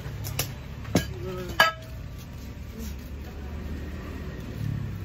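Dishes clinking as they are gathered up after a meal: three sharp knocks of plates or glassware, the third the loudest and ringing briefly, over a low steady hum.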